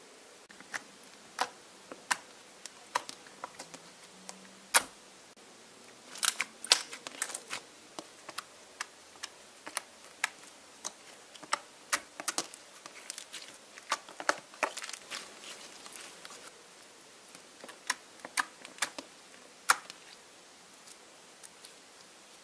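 Slime being poked, pressed and stretched by hand, giving off a run of sharp, sticky clicks and pops at an irregular pace, thickest in the middle stretch and sparser near the start and end.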